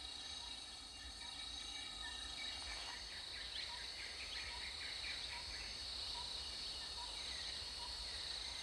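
Steady high-pitched drone of an insect chorus, with short chirps repeating about every two-thirds of a second. From about three and a half seconds in there are higher chirping calls, some falling in pitch.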